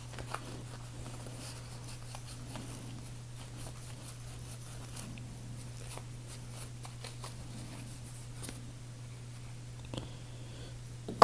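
Faint handling sounds of folding-knife parts being cleaned with alcohol: soft rubbing and scattered small clicks and ticks, over a steady low hum.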